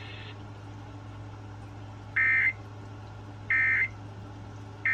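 Emergency Alert System end-of-message code: short, identical buzzy data bursts about 1.4 s apart, two of them and a third starting near the end, over a steady low hum and faint radio hiss.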